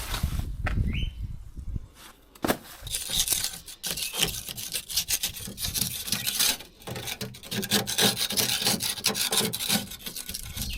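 Rapid, irregular scraping and scrubbing strokes: caked dirt being worked loose by hand from the cab floor of a mini excavator. The strokes start about three seconds in, after a duller, muffled stretch.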